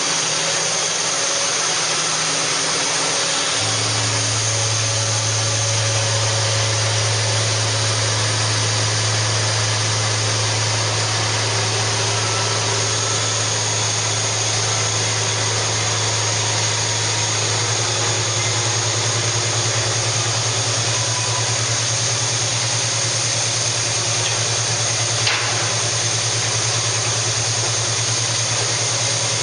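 Steady running noise of large factory machinery, with a loud low hum that comes in about four seconds in and holds; a single click near the end.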